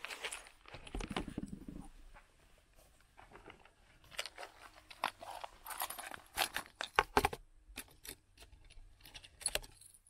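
Hands handling a small plastic tackle box and gear: irregular clicks, knocks and rattles of small hard items, busiest from about four to seven and a half seconds in.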